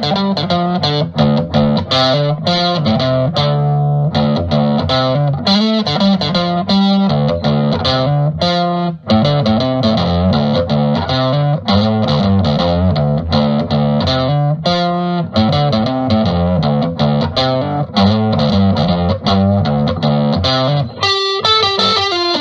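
Background music led by an electric guitar, with quick note changes throughout and a brief change in the music near the end.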